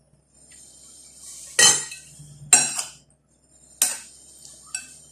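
Eating utensils clinking against a plate of food, four sharp clinks with a short ring, the second one doubled and the last one lighter.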